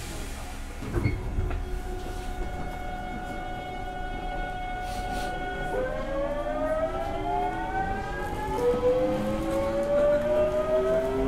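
Toshiba GTO VVVF inverter and traction motors of a Hankyu 8000 series train pulling away: a steady whine that switches abruptly about six seconds in to several tones rising in pitch together as the train gathers speed.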